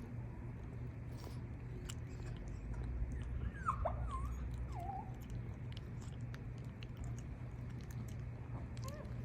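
A pet gives a few short, high, whining calls in quick succession about halfway through, over a steady low hum.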